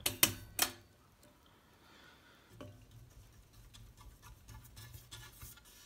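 Two sharp clicks in the first second, from the ceiling fan's pull chain just after it is pulled. Then the Canarm Eclipse ceiling fan runs quietly in reverse, with a faint low hum from about two and a half seconds in and light ticking.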